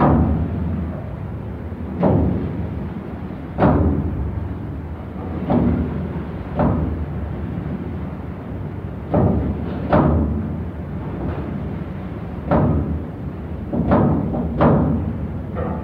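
Heavy thuds of a rough sea pounding a cross-channel car ferry's steel bow, heard from inside the anchor chain locker: a dozen or so hollow booming impacts at uneven intervals of one to two seconds, over a steady low drone of the ship.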